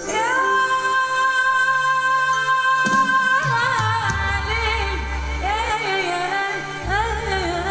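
Music with singing: a long held note for the first three seconds or so, then a wavering, ornamented melody over a low bass line.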